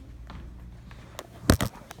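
A low steady hum, broken about a second and a half in by two loud, sharp knocks in quick succession.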